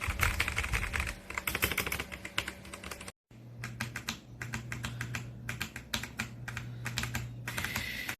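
Fast typing on a Machenike K500 B84 hot-swappable mechanical keyboard: a dense run of key clicks that stops dead for a moment about three seconds in, then carries on over a steady low hum.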